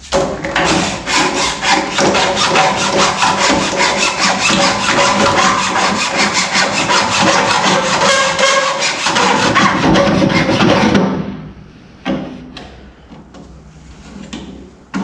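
Hand file rasping back and forth in quick, even strokes on the truck's dash radio opening, taking off a little material so the new stereo will fit. The filing stops about eleven seconds in, leaving only faint handling noises.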